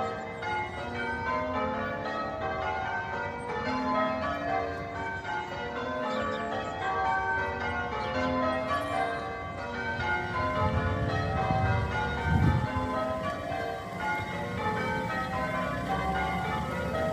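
Church bells change ringing: a steady, unbroken run of strikes stepping through the different bells' notes. A low rumble swells and fades near the middle.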